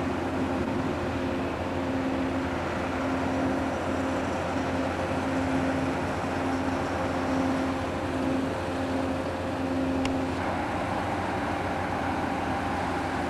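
Steady machinery drone with a pulsing low engine hum, as of diesel construction equipment running. A single click about ten seconds in.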